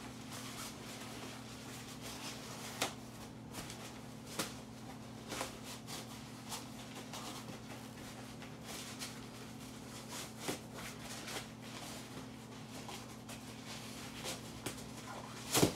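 Soft rustling and scattered light clicks of a nylon compression sack being handled as its lid is pulled over the stuffed sleeping bag, with one sharper click near the end, over a steady low hum.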